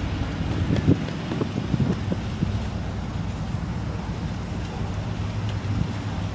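Chevrolet Silverado 3500HD pickup's 6.0-litre gas V8 running steadily at idle, with wind buffeting the microphone.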